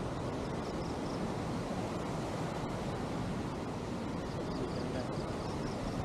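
Steady rushing noise of a waterfall and river water over rock, mixed with wind on the microphone. Faint high chirps come in short runs about half a second in and again near the end.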